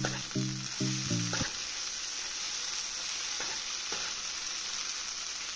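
Aloo bhindi (potato and okra sabzi) sizzling steadily in a pan on a gas flame once it is fully cooked. A voice is heard over it for about the first second and a half.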